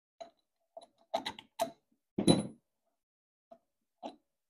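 Steel through-bolts and the cast aluminium housing of a small hydraulic gear pump being handled during teardown: a string of short metal clicks and knocks as the bolts are drawn out and laid on the bench. The loudest comes about two seconds in and has a brief metallic ring.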